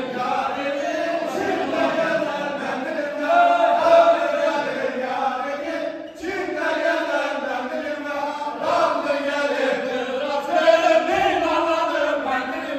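A group of men singing a Turkish folk song together in unison, with a brief pause about six seconds in.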